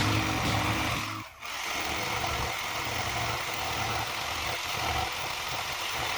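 Handheld power tool running steadily on wood, rounding over the sharp edge of the bed-frame board. It dips out briefly about a second in, then carries on.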